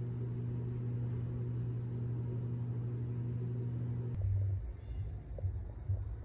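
Steady low electrical hum. About four seconds in it cuts off, giving way to an uneven low rumbling with a few soft clicks.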